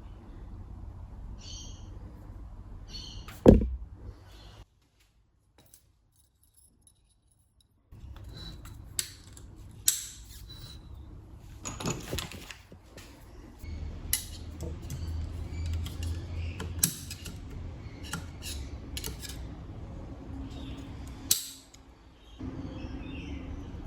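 Metal tools and parts clinking and knocking on and off, with one loud knock about three and a half seconds in, then a few seconds of dead silence before the clinks resume.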